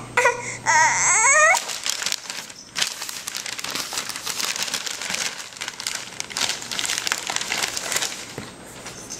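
A baby gives a brief, high, wavering squeal in the first second and a half, then crinkles and crumples a paper flyer in her hands, a rapid irregular crackling of paper.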